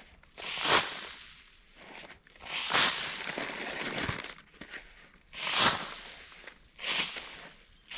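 A series of loud, gritty crunching scrapes, one every one to three seconds, each trailing off.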